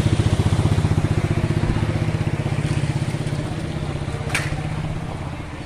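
Engine running with a fast, even putter that slowly fades, with a short sharp click about four seconds in.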